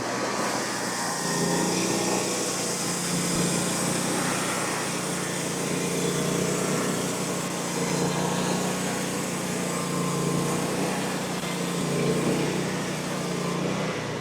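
Frontier OS35 portable bandsaw mill running under load, its engine humming steadily while the band blade cuts a board from a fresh tulip poplar log, with a hiss of sawing over it. The steady hum stops near the end as the cut finishes.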